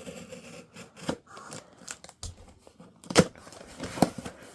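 Cardboard shipping box being opened: tape slit down the middle, then the flaps and packing handled with scratchy rustling and scattered clicks. Two sharp knocks about three and four seconds in, the first the loudest.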